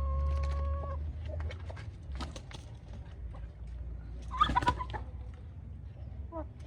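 Rooster crowing, its long held note ending about a second in, followed by scattered light taps and clucks from the flock, with a loud, short squawk near the middle.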